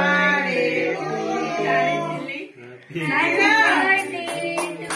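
Women and children singing together in a group, with hand claps starting near the end.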